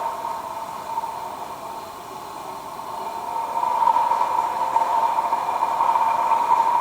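A steady, droning whine with one clear pitch, the loud noise that woke the household. It fades slightly, then grows louder about three to four seconds in.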